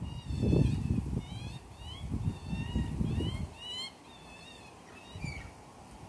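Birds chirping in quick short notes that slide up and down, over an uneven low rumble that is loudest in the first second or so and again from about two to three and a half seconds in.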